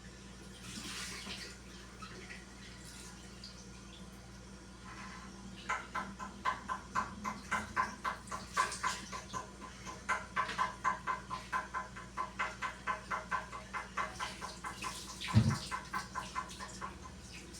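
Wet surface being scrubbed by hand in quick back-and-forth strokes, about three a second, each stroke giving a short squeak; this is typical of wiping down fridge shelves. Near the end comes a single dull thump.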